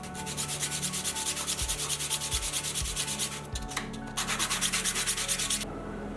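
Hand sanding: fast, rhythmic back-and-forth rubbing strokes, several a second, in a long run, a short pause, then a second shorter run.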